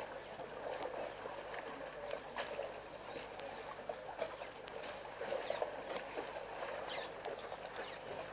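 Water and mud sloshing and splashing in irregular small bursts as baby African elephants wallow in the shallows.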